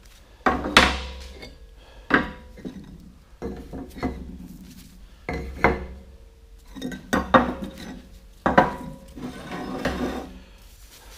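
Steel workpiece and tools being handled in a machine shop: a series of sharp metal clanks and knocks, about five loud ones, some ringing briefly.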